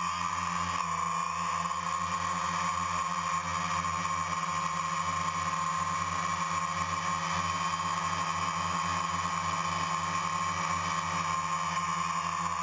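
DJI Phantom quadcopter's motors and propellers buzzing steadily while it hovers, heard from the camera mounted on the drone itself.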